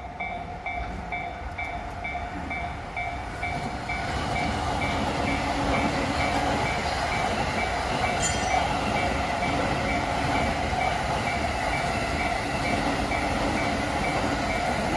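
Japanese level crossing alarm bell ringing in an even ding-ding rhythm, roughly two and a half strikes a second, while a Shonan-Shinjuku Line train passes through the crossing. The train's running noise and wheel rumble build about four seconds in and then carry on steadily under the bell.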